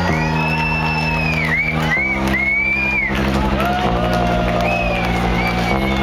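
Electronic dance music played loud over a festival sound system: sustained synth chords that change about every two seconds, with a high synth line gliding and swooping above them.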